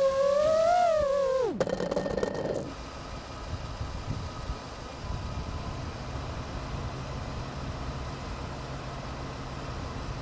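FPV quadcopter's motors whining, the pitch wavering with the throttle, then cutting off abruptly about a second and a half in as the drone crashes to the ground, with a short burst of clattering. A quieter steady low hum follows.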